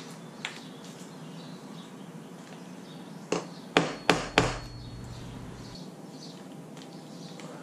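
Hammer blows, four sharp strikes in quick succession a little past the middle after two light taps at the start, knocking a hole for a grommet in a plastic tarp laid on concrete.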